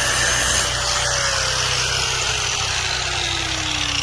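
A motor running steadily with a low hum, while a whine slowly falls in pitch across the few seconds, like something spinning down.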